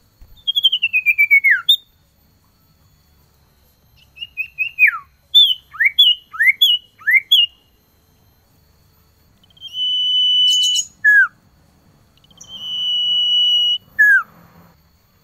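Male common iora singing. It gives a quick run of notes falling in pitch, then a string of short notes each dropping in a slur, then twice a long steady whistle ending in a quick falling note.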